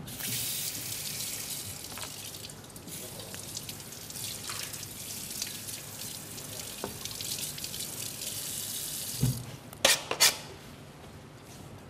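Kitchen tap running water into a sink, a steady hiss that stops about nine seconds in, followed by a thump and two sharp clicks.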